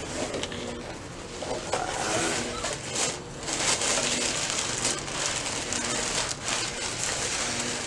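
Tissue paper crinkling and rustling as it is pulled out of a cardboard box, with the box flaps being handled.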